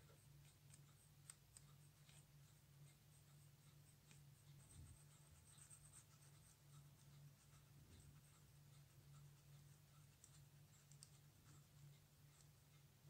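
Near silence: a faint steady low hum, with soft scattered clicks and light scratching from a fine brush working over a watch dial held in a metal holder.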